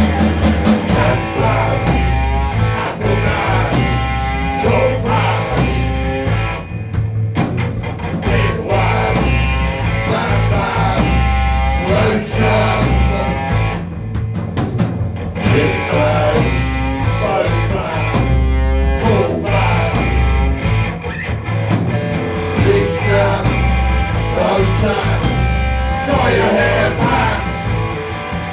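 Live rock music with a vocalist singing into a microphone over a pulsing bass line.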